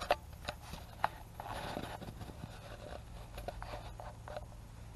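Handling noises: a few sharp clicks in the first second, then a short scraping rustle, and small ticks after.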